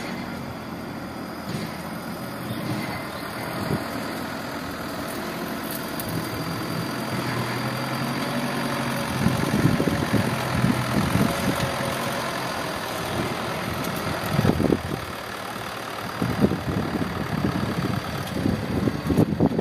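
Loaded light dump truck's diesel engine running steadily at low revs as it moves along a gravel road, with irregular bursts of rough noise in the second half.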